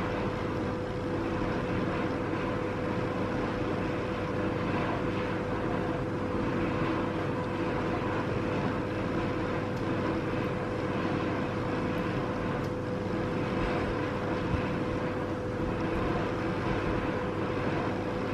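Steady background hum and hiss with a faint constant tone, unchanging throughout, like a running air-conditioning unit or fan in a small room.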